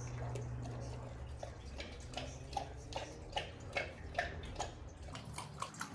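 Great Dane lapping water from a stainless-steel bowl, a steady rhythm of wet laps about two and a half a second, over a low steady hum that drops away near the end.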